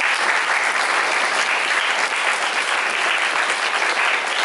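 Audience applause, dense and steady, welcoming a speaker to the podium.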